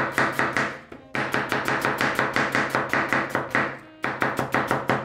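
Kitchen knife chopping vegetables on a cutting board in rapid, even strokes, about eight a second. The chopping pauses briefly twice.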